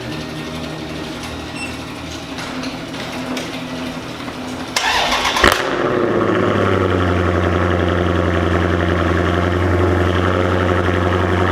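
Dodge Challenger Scat Pack's 392 HEMI V8 cold-starting. A steady low hum runs for about five seconds, then the engine catches with a sharp burst and settles into a loud, steady idle.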